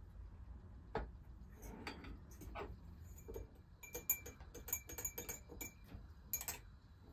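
Metal teaspoons clinking against small glass dessert bowls and tea glasses: scattered light taps, a few of them ringing briefly, thickest about four to six seconds in.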